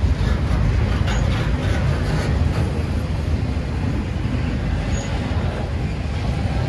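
Norfolk Southern diesel-hauled train running, a steady low rumble.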